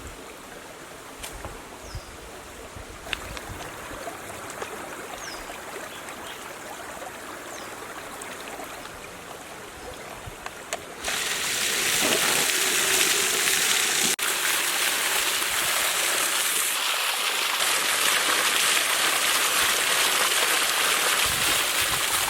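Repaired electric water pump on test: about halfway through, water suddenly starts gushing out, a loud, steady rush of water. Before that there is only a quieter watery hiss with a few faint high chirps.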